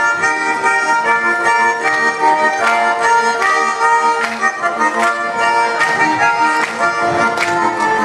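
Accordion playing an instrumental passage of a Russian folk tune, with sustained chords and a regular beat, without voices.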